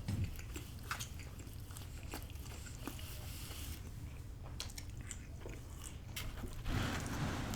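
Close-miked chewing of pepperoni and jalapeño pizza, with small wet clicks and crunches of the bites, a little louder near the end.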